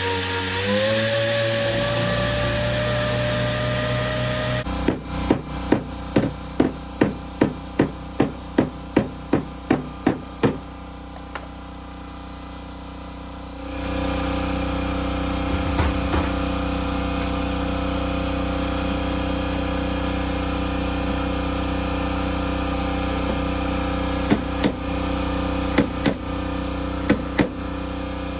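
A power tool spins up with a rising whine and runs steadily with a hiss for a few seconds, then cuts off. Sharp knocks come about two a second for several seconds. Then a steady low hum sets in, with a few more knocks near the end.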